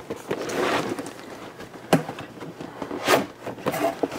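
A large cardboard box being opened and handled: cardboard rubbing and scraping, with one sharp knock about two seconds in.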